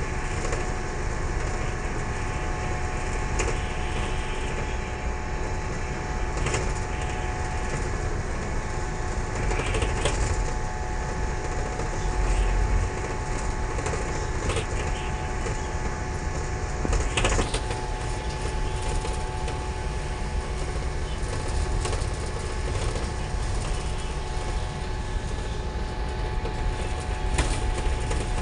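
Cabin noise inside an Isuzu Almazora minibus on the move: steady engine and road rumble with a steady whine, and short rattles and knocks from the body and fittings.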